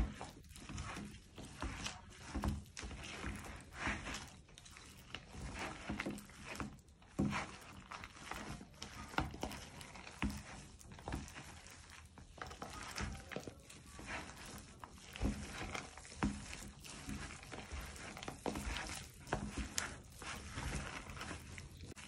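Gloved hand mixing shredded chicken, cream cheese and grated Parmesan in a plastic tub: soft irregular squishing and rustling with light knocks against the container.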